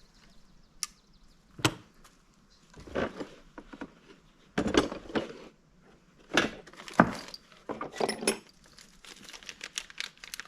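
A series of separate clicks and knocks, with small quick clicking near the end: metal engine parts and tools being handled and set down on a workbench.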